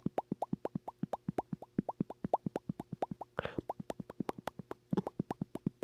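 Rapid series of mouth pops, about six a second, each a quick upward-sweeping pop. The run breaks twice for a short breath, a little past halfway and again about a second later.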